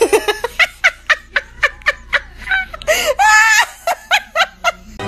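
A person laughing in a quick run of short bursts, with a longer, higher laugh about three seconds in.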